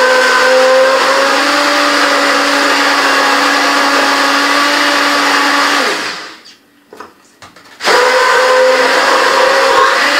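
Handheld immersion blender running steadily in a tall jug of lemonade. It winds down and stops about six seconds in, then starts up again about two seconds later.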